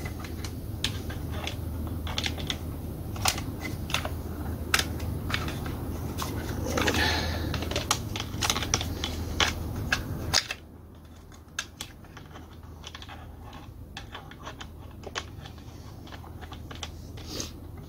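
Small sharp clicks and taps of plastic and metal parts as a carburetor is fitted back onto a STIHL MS180C chainsaw, with a brief scrape about seven seconds in. A low steady hum underneath cuts off suddenly about ten seconds in.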